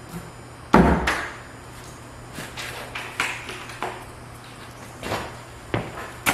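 Knocks and clatter of items being handled and set down during a workshop clean-up: one sharp, loud knock about a second in, then several lighter knocks and rattles, over a steady low hum.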